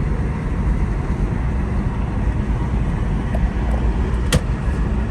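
Chevrolet Cruze 1.8 being driven on a road test of its repaired automatic gearbox: steady low engine and road rumble, with a single sharp click about four seconds in.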